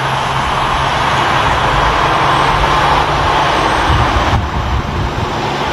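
A heavy truck passing on the road: steady tyre and road noise that is loudest around the middle, with the engine's low hum underneath.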